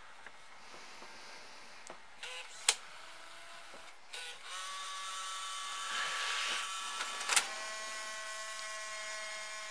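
The loading mechanism of a Bose multi-CD changer: a few sharp mechanical clicks, then a small motor and gears start whirring steadily about halfway through and keep running. The mechanism won't stop because the top slot's disc-detect switch has failed, which the repairer puts down to a switch that has gone bad.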